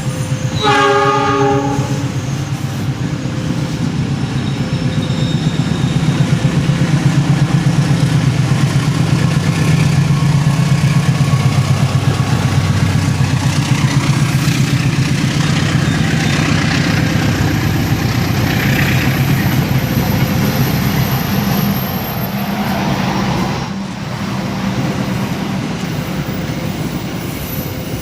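CC206 diesel-electric locomotive arriving with its train: a short horn blast about half a second in, then the diesel engine's low running and wheels clattering over rail joints, the rumble building to its loudest around the middle and easing toward the end.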